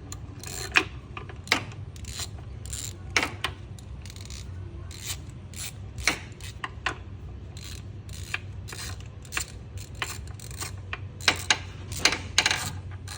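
Ratchet and socket extension clicking and clinking in irregular strokes while a spark plug is worked loose and drawn out, over a steady low hum.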